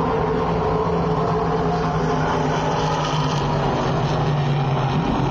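NASCAR stock car's V8 engine running at low speed as the car comes in toward the listener, with a steady note that drops in pitch shortly before the end as it slows.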